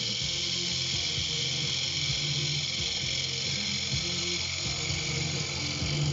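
Wood lathe running while a turning tool cuts an oak blank, making a steady hiss with a rapid mechanical rattle, over music from a radio.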